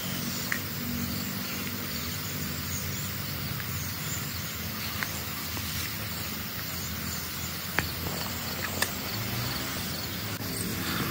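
Steady outdoor ambience: an even hiss with a faint low hum underneath, broken by a few short sharp clicks. Music comes in near the end.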